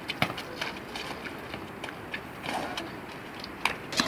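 Football play on a hard outdoor pitch: sharp thuds of the ball being kicked and scuffing footsteps of players running. The sharpest thud comes just after the start, with a few more close together near the end.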